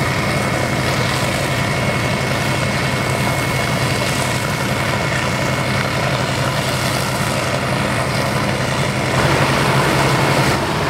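Heavy diesel engines of fire trucks running steadily, with a thin steady high whine over them that stops near the end. The sound changes about nine seconds in.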